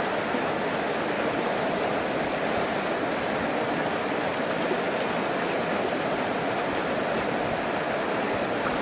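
Fast-flowing muddy water churning through rapids, a steady, unbroken rushing noise.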